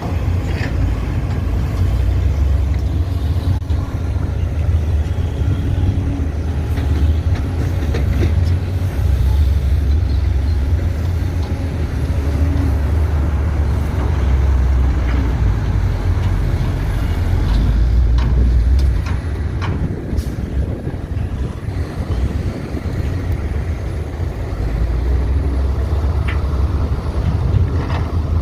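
Diesel engines of an excavator and dump trucks running at a worksite: a loud, steady low rumble with occasional faint knocks.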